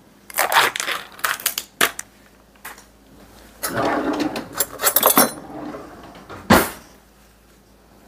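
Kitchen handling sounds at the counter: scraping and rustling with a few sharp clicks, then a single loud knock near the end.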